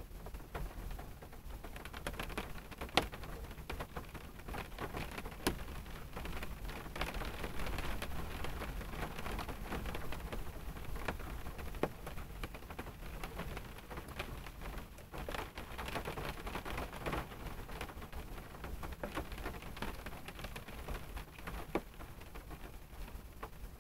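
Rain falling on a car, heard from inside the cabin: a steady patter with many single drops ticking sharply on the car's body. It grows heavier for a few seconds about a third of the way in and again around two-thirds.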